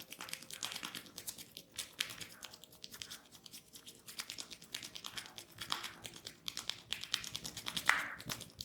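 Fingers rubbing and scratching through hair in a head massage: a dense run of fast crackles and rustles, with a louder swish near the end.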